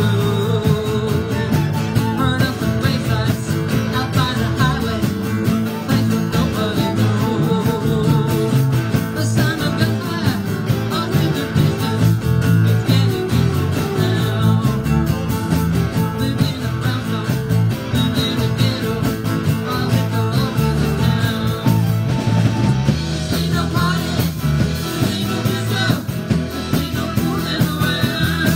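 Live band playing a rock song, with electric guitar, fiddle and drums together over a steady beat.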